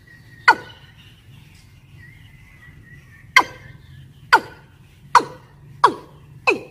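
Watercock calls: sharp notes that each slide quickly down in pitch, one alone near the start, then a quickening run starting about three seconds in, roughly one note every 0.7 s. It is the female's breeding call to males, the call used as a lure. A faint steady high tone lies underneath.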